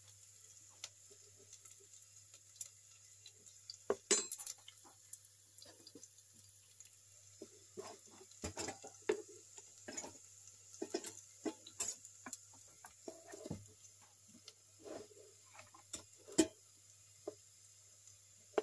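Cookware clattering on a gas stove: a wok and an enamel pot are knocked and set down in scattered clinks and clanks. A sharp clank comes about four seconds in and another near the end, over a faint steady low hum.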